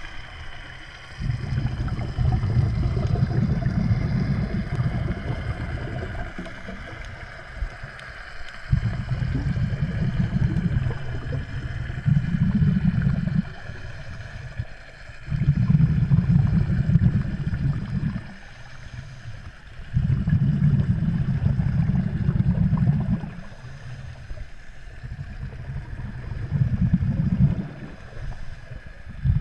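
Scuba diver's exhaled bubbles from the regulator, heard underwater as low rumbling bursts two to four seconds long every few seconds, with quieter gaps for the in-breaths. A faint steady hum runs underneath.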